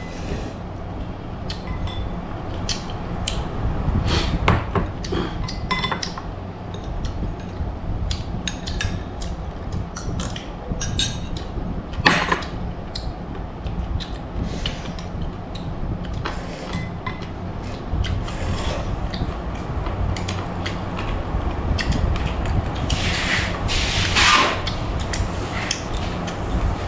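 Spoons clinking and scraping against porcelain bowls while eating, scattered clicks and knocks over a steady low hum, with a couple of brief hisses near the end.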